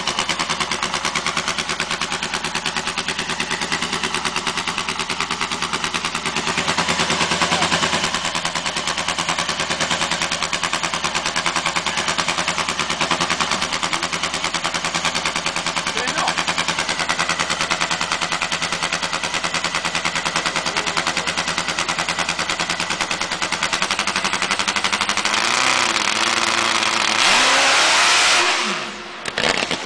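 Motorcycle engine running very loud with a rapid pulsing exhaust note. The level dips briefly near the end.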